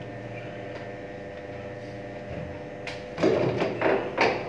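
Steady machinery hum with a few fixed tones and a low drone. About three seconds in, a short run of clattering and knocking as the filter parts are handled.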